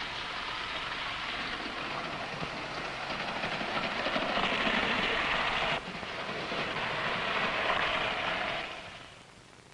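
Toy electric train running on three-rail track: a steady rattling whir of wheels and motor. It grows louder about four seconds in, drops abruptly a little before six seconds, picks up again, then fades away near the end.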